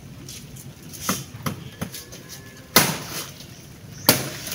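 Chopping at a fallen banana plant's thick stalk with a blade: a few light knocks, then two loud, sharp chops about a second and a half apart.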